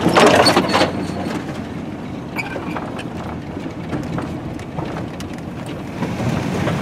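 Vehicle driving slowly over a rough sandy dirt track, heard from inside the cab: a steady low engine and tyre rumble with scattered small knocks and rattles. There is a brief louder rush of noise at the very start.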